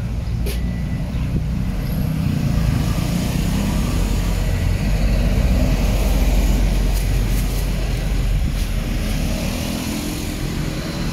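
Street traffic rumbling by, with a motor vehicle engine swelling louder and fading around the middle.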